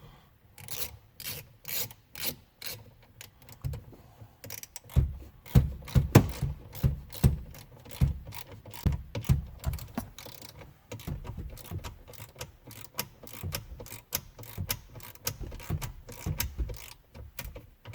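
Hand ratchet clicking in short strokes as a breakaway safety screw on a Ford ignition lock cylinder housing is driven in, toward the torque at which its 10 mm head shears off.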